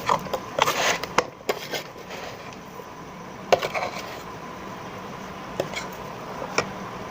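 A utensil scraping and knocking against the inside of an electric kettle while stirring a dry, crumbly mixture of roasted gram flour (sattu), sugar and cashews. A run of scrapes and clicks comes in the first two seconds, then a few single knocks.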